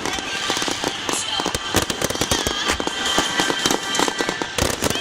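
Fireworks display: a dense, continuous run of bangs and crackling from shells bursting.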